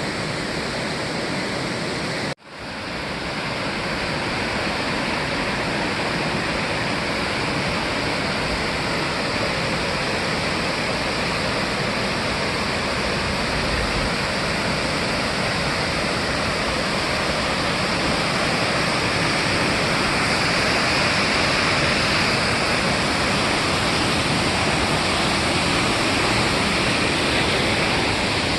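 Waterfall: a steady, dense rush of falling water. It cuts out abruptly for an instant about two seconds in, then comes back up over a second.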